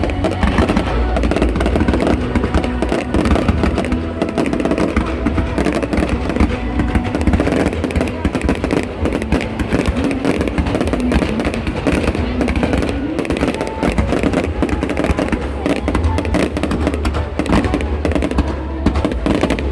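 Fireworks display going off continuously, a dense run of bangs and crackles, with music playing at the same time.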